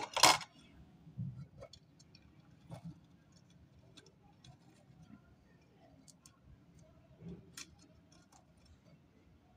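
Gravel and small pebbles clicking and scraping faintly and irregularly as a small plastic toy car is pressed into a pot of gravel, after a brief loud clatter right at the start.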